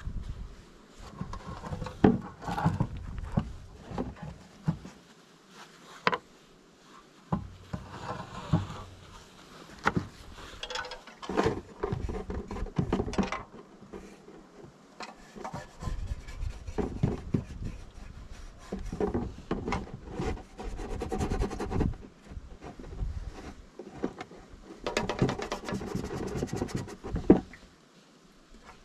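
Irregular scraping and rubbing in short spells, broken by scattered sharp knocks and clicks.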